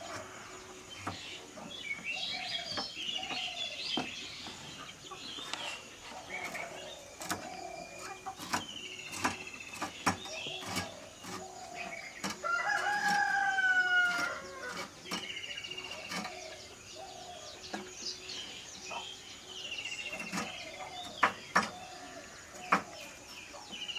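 Chickens clucking, with a rooster crowing once about halfway through, the loudest sound, and small birds chirping. Near the end come a few sharp clicks as a knife cuts through bitter melon.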